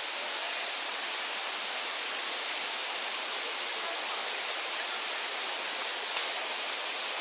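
Steady rush of falling, turbulent water: a waterfall or fast stream pouring over rocks. There is one short click near the end.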